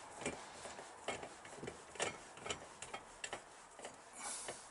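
Light irregular clicks and ticks, roughly one or two a second, of a thread tap and tap wrench being turned back out of a freshly tapped hole in soft aluminium, with a brief hiss near the end.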